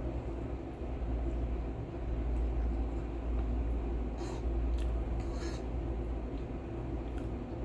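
Steady low rumble, with a few brief eating noises about four and five and a half seconds in.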